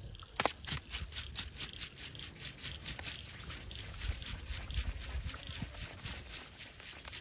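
Rapid, evenly spaced clicking, about five to six clicks a second, starting with one louder knock, over a low rumble.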